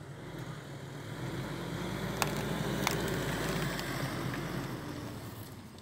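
Mitsubishi Pajero Sport's engine running as the SUV drives slowly past over rough grass, growing louder to about the middle and then fading as it moves away. Two sharp clicks come in the middle.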